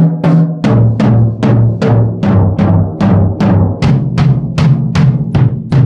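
Drum kit toms struck with sticks in slow, even double strokes, about three hits a second. After the first few strokes the playing moves from a higher-pitched tom to a deeper one.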